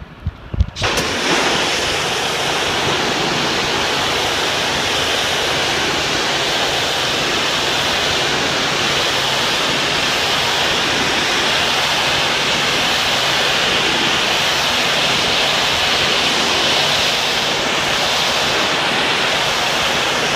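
Pressure washer spraying a precast concrete facade: a few short knocks, then the water jet starts about a second in and holds as a loud, steady hiss over a low, even hum.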